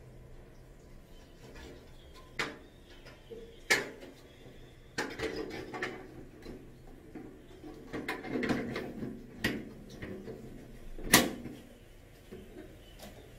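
A ceiling light's dome cover being fitted back onto its base: a series of sharp clicks and knocks with stretches of scraping as the rim is pushed and turned into place. The loudest knock comes near the end.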